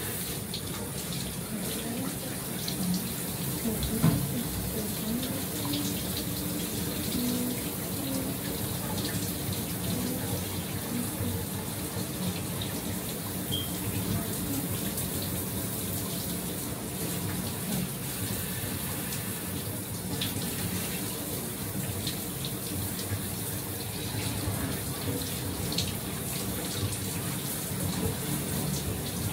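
Shower running steadily, water spraying and splashing, with a single knock about four seconds in.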